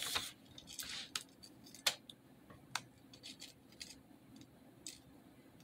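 Faint, scattered light clicks and rustles of dry Froot Loops cereal being handled and pressed into set candle wax in a glass bowl.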